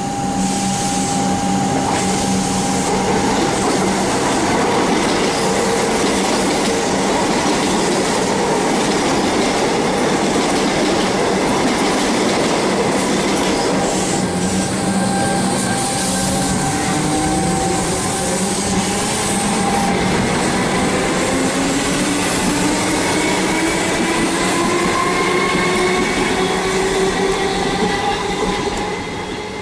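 Comeng electric suburban trains running through a station: a steady rumble of wheels on rail. From about halfway, a rising whine from the traction motors as a Comeng accelerates away, with the sound dropping off near the end.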